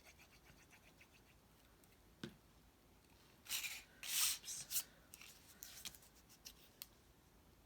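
Cardstock being handled and pressed into place: a sharp tap a little after two seconds, then several short bursts of paper rustling and rubbing about halfway through, trailing off into a few light clicks.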